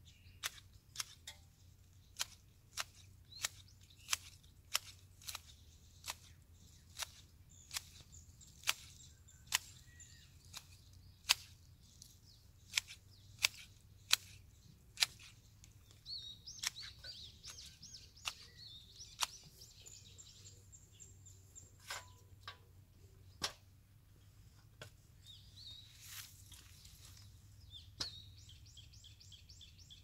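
Hand pruning shears snipping the new shoots of a shaped pine: a crisp cut about every half to one second for the first half, then only a few scattered cuts. Small birds chirp now and then, with a fast trill near the end.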